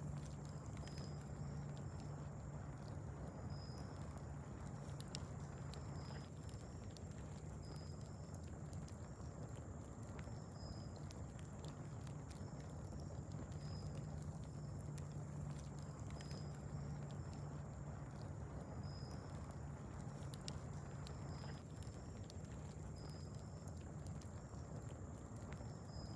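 Wood fire crackling with scattered small pops over a steady low hum, with short high chirps repeating about once or twice a second.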